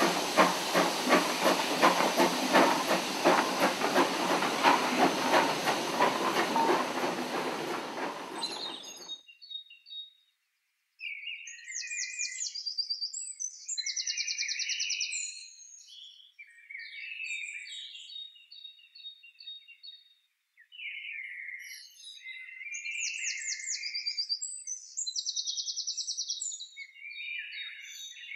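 Steam locomotive hissing with a rapid pulsing exhaust, stopping abruptly about nine seconds in. Songbirds sing after that in repeated high phrases.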